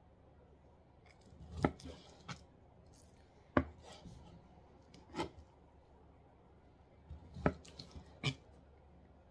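Kitchen knife cutting raw chicken breast into cubes on a plastic cutting board: sharp, uneven knocks of the blade on the board, about seven of them, roughly a second apart.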